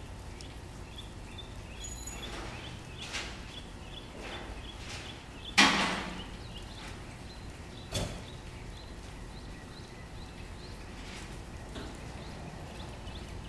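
Metal tent pipes clanging as they are handled: a few scattered clanks, the loudest about halfway through with a ringing tail, and another sharp one about two and a half seconds later.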